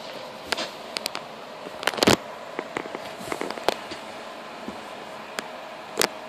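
Irregular clicks and knocks from a cat batting at a swinging belt on carpet, loudest in a cluster about two seconds in and once more near the end.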